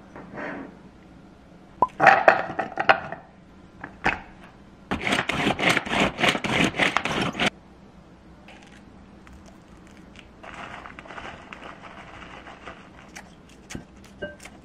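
Kitchen prep noises: a mini food chopper rattles as it chops for about two and a half seconds in the middle, with clattering and scraping of bowls and utensils before and after it, and a few sharp knife clicks near the end.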